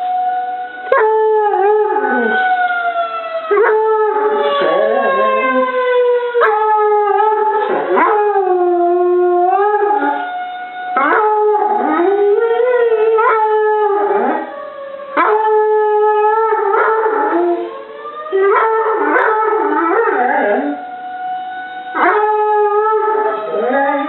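Treeing Walker Coonhound howling over and over, a long run of drawn-out howls that bend in pitch and break off every second or two. Behind them a tornado siren wails with a slowly falling pitch.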